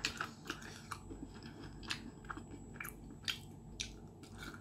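Close-up chewing of crisp battered fried chicken cartilage (odolppyeo), a faint, irregular run of sharp crunches, about three a second, as the batter and gristle break between the teeth.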